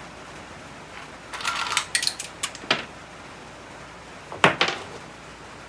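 Metal objects being handled, clinking and clattering. There is a quick run of clicks and rattles between about one and three seconds in, then a sharp clink followed right away by a second one, near the end.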